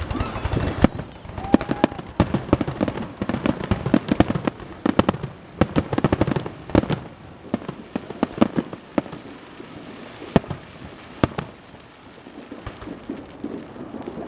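Fireworks finale: rapid, overlapping volleys of bangs for the first seven seconds or so, then thinning to a few single loud bangs with gaps between them.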